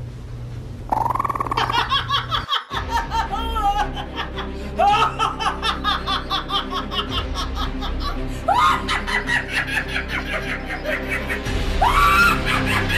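A woman laughing hard in about four fits, each opening with a rising whoop followed by rapid bursts of laughter, over background music.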